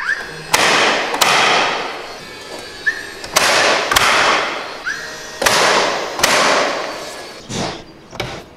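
DeWalt cordless nailer driving nails through a plywood strip into the wooden door framing: six sharp, ringing shots in three pairs, each pair preceded by a short rising whine from the tool. Near the end come two lighter knocks as a hammer taps.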